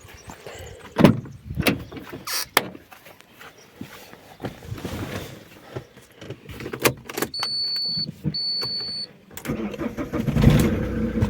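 Alfa Romeo 147 1.9 JTD 8-valve diesel being restarted while hot: several clicks and knocks, then a repeating high beep from about seven seconds in. Near the end the starter cranks briefly and the engine catches and settles into a steady idle, a hot start with no crank-no-start fault.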